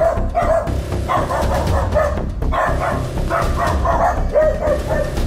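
Guard dogs barking repeatedly in quick runs of short barks.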